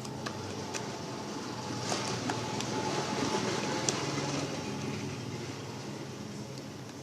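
Homemade glue slime being kneaded by hand, giving sticky rustling and a few small sharp pops and clicks, louder in the middle, over a steady low hum.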